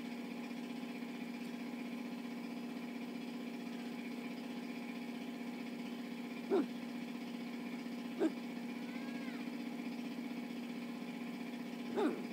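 Steady mechanical hum of a running motor or engine, one droning pitch with its overtones. A few brief sharp sounds stand out over it: one about halfway through, another a couple of seconds later, and one near the end.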